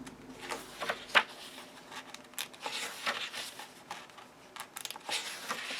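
Paper pages of a small hardcover coloring book being turned one after another: irregular soft swishes and rustles, with one sharper snap about a second in.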